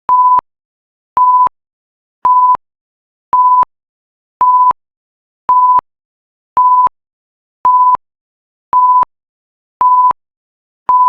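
Electronic timer alarm beeping at the end of a countdown: a steady mid-pitched tone in short beeps about a third of a second long, repeating about once a second, with a faint click at the start and end of each beep.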